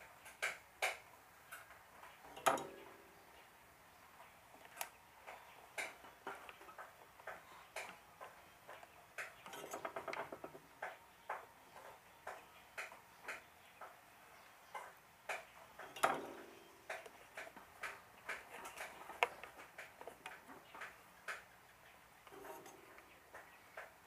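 Light, irregular clicks and taps, about one or two a second, from soldering work on a stand fan's speed-switch terminals, with a short rattle about ten seconds in.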